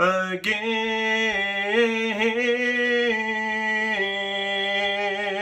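A man singing a cappella, one unaccompanied voice drawing out a long held word over several slow changes of pitch.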